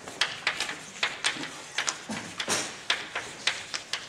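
Chalk writing on a blackboard: a quick, irregular run of sharp taps and short scratches as letters are written.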